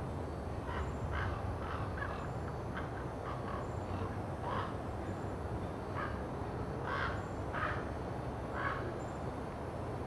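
Crows cawing: about a dozen short, separate calls spread unevenly through the few seconds, over a steady low rumble.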